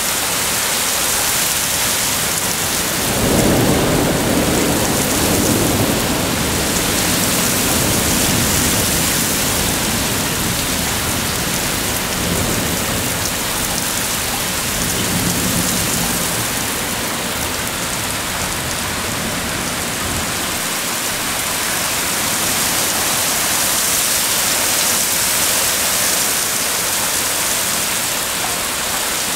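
Heavy rain pouring steadily in a severe thunderstorm. A rumble of thunder comes in about three seconds in and dies away over several seconds, and a weaker rumble follows near the middle.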